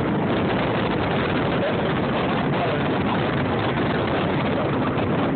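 Ford Mustang's engine and road noise heard from inside the cabin while driving at speed on a race track, a steady unbroken drone.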